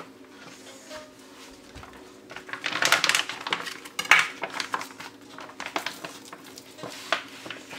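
Plastic wrap on a rack of pork spareribs crinkling and tearing as it is cut open with a kitchen knife, in crackly bursts about two and a half and four seconds in, with clinks of the knife against the metal sheet pan. A steady faint hum runs underneath.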